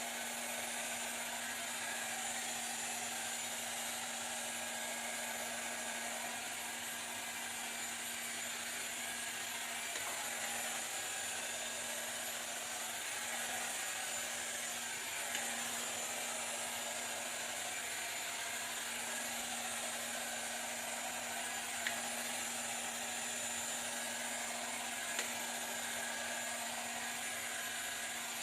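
Detachable hair dryer running steadily on its high setting: an even rush of blown air with a constant low hum, and a few small clicks.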